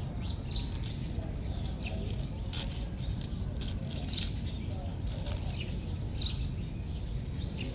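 Small birds chirping now and then, short high chirps several times, over a steady low rumble of wind.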